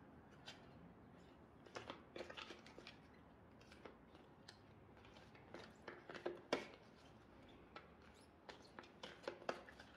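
Angel oracle cards being shuffled and fanned by hand: faint flicks and snaps of card stock in three short flurries a few seconds apart.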